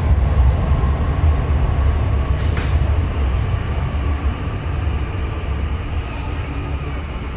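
Hangzhou Metro Line 19 train running past the platform: a loud, steady low rumble of wheels and traction that slowly fades, with a short hiss about two and a half seconds in.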